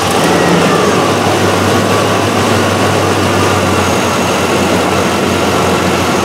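A 2004 Chevrolet 1500 pickup's 4.8-litre V8 idling steadily just after being started.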